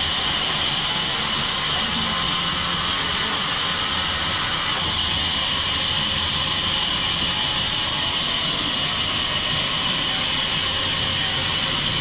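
Large sawmill band saw ripping lengthwise through a log as it is pushed through the blade: a steady, loud, even hiss with a strong high edge.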